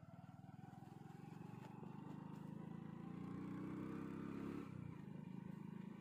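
Engine of a moving road vehicle running, its pitch and loudness climbing as it speeds up, then dropping suddenly about three-quarters of the way through.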